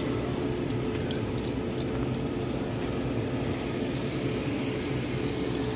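A steady low motor hum, with a few faint metallic clinks in the first two seconds.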